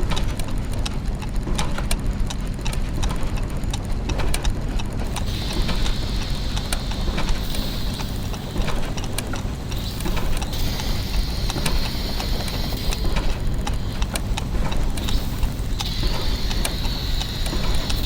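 Clockwork mechanisms and gears ticking and clicking in a dense, uneven clatter over a steady low mechanical hum. A high hiss comes in three times for about three seconds each, about five, ten and sixteen seconds in.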